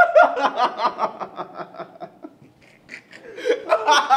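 Two young men laughing hard, in quick rhythmic bursts of laughter; it dies down about halfway through, then breaks out loudly again near the end.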